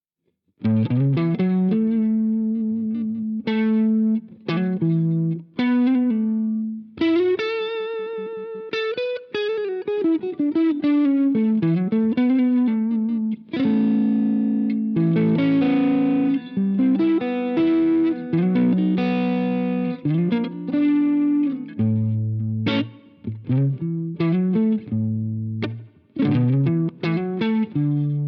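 Electric guitar played through an iSet Dumbler, a Dumble-style overdrive pedal, with a light, dynamic crunch. It mixes chords and single-note lines, with held notes bent and shaken with vibrato. The playing starts about half a second in.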